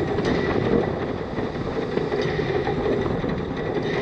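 Narrow-gauge steam locomotive running steadily along the line, heard close up at the front of the engine. There is an even rumble and rush of wheels and running gear, with a faint high tone above it.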